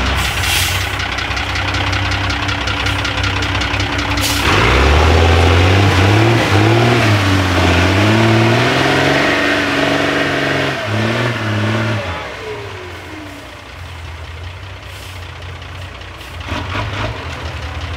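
Diesel engine of a modified 4x4 trial truck pulling through deep mud and water, revving up and down repeatedly for several seconds, its pitch rising and falling. About twelve seconds in it drops back to a lower, quieter run. There is a brief sharp noise about four seconds in.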